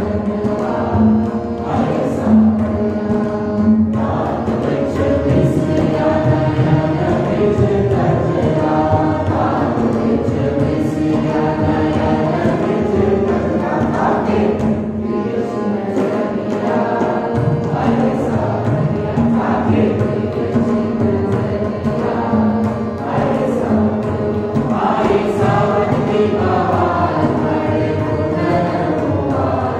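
A group of voices singing a chant-like melody over a steady sustained drone note.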